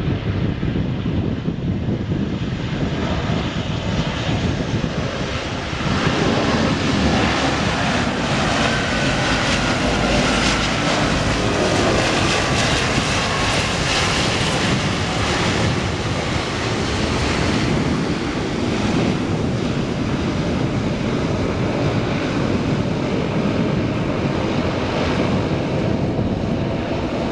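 Ryukyu Air Commuter airliner's propeller engines running as it rolls down the runway after landing. The noise gets louder about six seconds in, with a whine that shifts in pitch around the middle.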